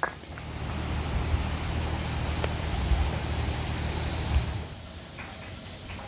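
One clack of a wooden geta sandal, then a steady low rushing rumble for about four seconds at a steaming hot-spring source pipe, which drops away near the end to quieter background sound.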